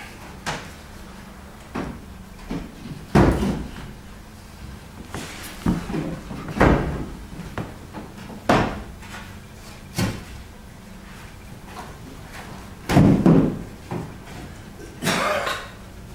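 Wooden picture frames and stretchers knocking and bumping as large paintings are handled, leaned against the wall and lifted into place: a string of irregular thumps and knocks, a few of them louder.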